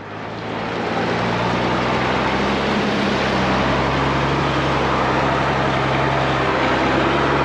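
Mercedes Unimog U1700L truck driving, its diesel engine running steadily under a broad rush of noise. The sound fades in over the first second.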